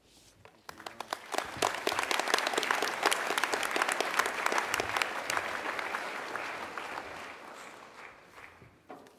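Audience applause: many people clapping, starting about a second in, swelling quickly, then dying away over the last few seconds.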